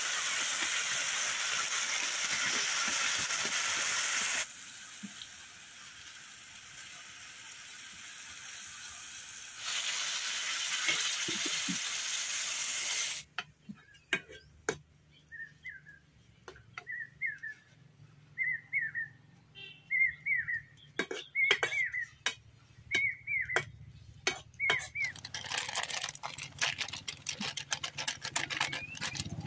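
Mutton and bottle gourd frying in a kadai, sizzling loudly and cutting in and out abruptly. Then a quieter stretch with a bird giving short chirps about once a second and the iron spatula clicking against the pan. The sizzling returns near the end.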